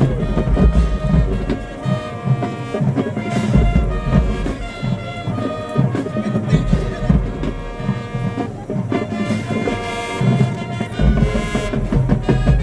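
High school marching band playing: held brass notes over a drumline with heavy bass drums.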